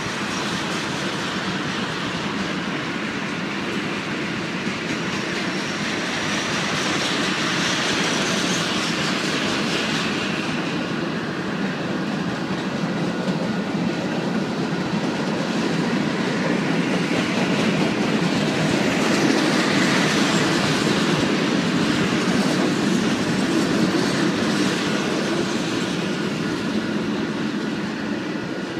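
Freight train of covered hopper cars and tank cars rolling past: a steady rumble and clatter of steel wheels over the rails, swelling and easing slightly as the cars go by.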